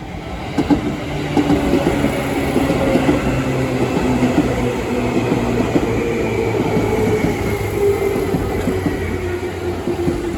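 Seibu Ikebukuro Line electric commuter train passing close by, loud, building up over the first second. Its wheels clatter over the rail joints, under a motor whine that falls slowly in pitch.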